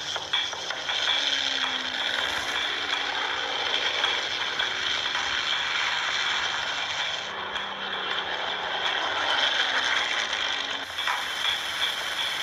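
Several WWII propeller fighter planes' piston engines running at full power as the squadron takes off and passes overhead, with the engine pitch sliding now and then as planes go by. Heard played back through a television's speaker.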